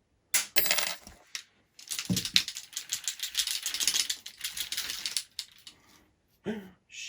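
Small metal parts clinking and rattling during hand work on a hexacopter frame arm: a few sharp clicks, then a few seconds of rapid, dense clicking and rattling.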